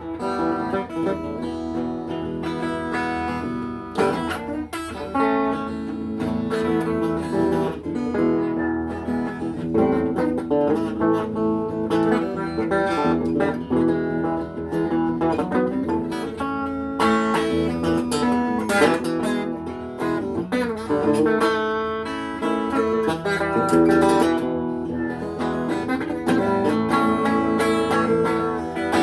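Guitar music, with notes plucked and strummed.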